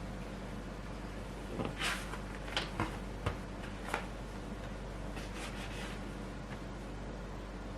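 A few soft taps and rustles from hands shaping bread dough on a work surface, over a steady low hum.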